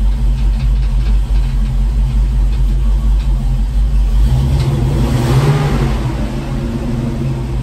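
LS-based V8 engine idling steadily, then revved once about four and a half seconds in, its pitch rising and falling back toward idle near the end.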